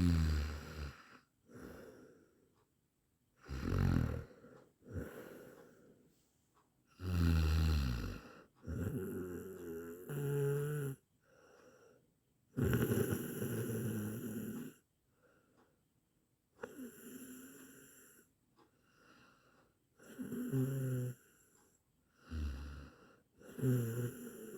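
A person snoring, about seven snores in a row, one every three to four seconds. Each is a low rattling breath followed by a softer trailing breath, with quiet gaps between.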